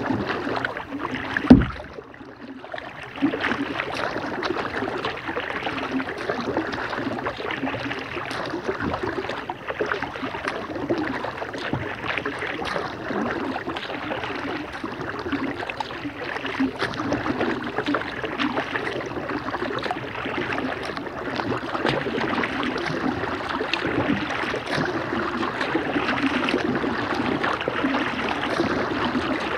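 Kayak paddling: steady splashing and dripping from the paddle strokes, with water lapping along the Lifetime kayak's plastic hull. A single loud thump comes about a second and a half in, followed by a brief lull before the splashing picks up again.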